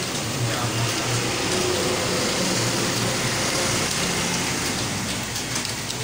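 Fast typing on a computer keyboard, a rapid clatter of key clicks, over a steady background rumble.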